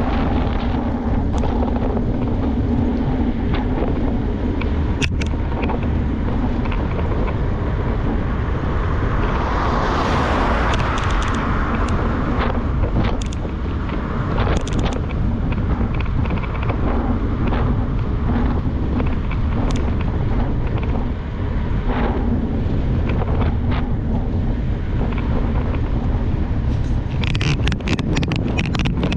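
Wind buffeting an action camera's microphone while a mountain bike is ridden, over a steady rumble of tyres on the road. Scattered clicks and rattles come from the bike, with a louder swell of wind about ten seconds in and a quick run of clicks near the end.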